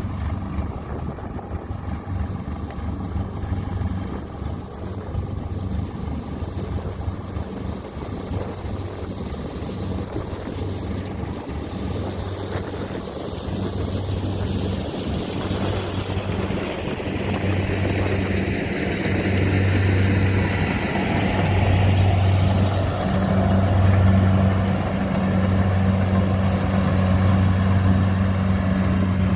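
Kubota DC70 combine harvester's diesel engine running steadily with a low hum, growing louder past the halfway point.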